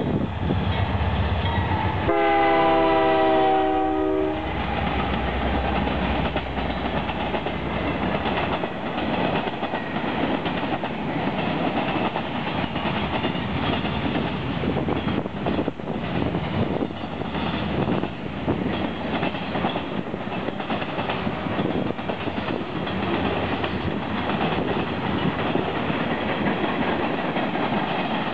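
Canadian National diesel-electric freight locomotives passing with a heavy low rumble, their air horn sounding a chord for about two seconds a couple of seconds in. A long string of freight cars then rolls by, the wheels clattering steadily over the rails.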